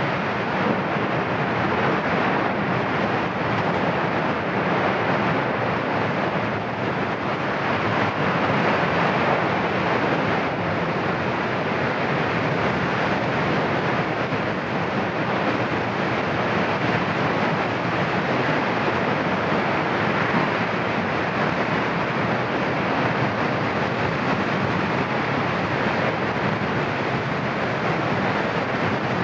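Cumbre Vieja volcano erupting: a steady, unbroken roar from the vent as the ash column pours out of the cone.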